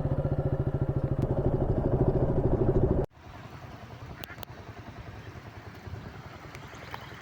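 Motorcycle engine running with a rapid, even pulse for about three seconds, then cutting off suddenly. Quiet outdoor background with a few faint clicks follows.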